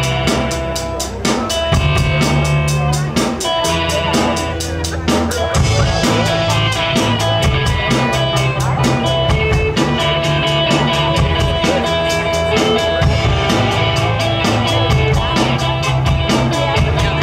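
A live rock band playing through a PA: a drum kit keeps a steady, fast beat under electric guitars and changing low bass notes.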